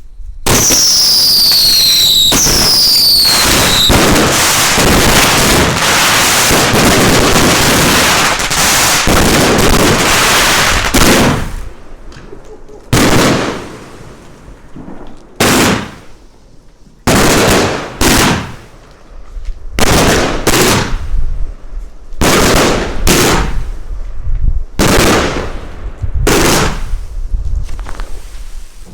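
Firework compound cake firing: the Whistling Fan opens with whistling shots that fall in pitch, then a dense continuous barrage of rapid shots runs until about eleven seconds in. The Reptilian section follows with separate loud shots and bursts, in quick runs with short pauses between.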